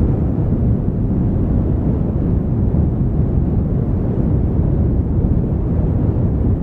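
Campfire burning in the open, heard as a loud, steady low rumble with wind buffeting the microphone.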